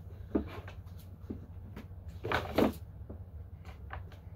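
Plastic CD jewel cases clacking and knocking as they are handled and picked up from a stack, a few separate knocks with the loudest pair a little past the middle.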